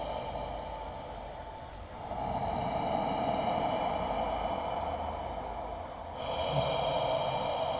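Opening sound design of a projection-mapping show played over loudspeakers: a hissing drone with a high, buzzing layer of even tones above it. It dips about two seconds in and again about six seconds in, then swells back each time.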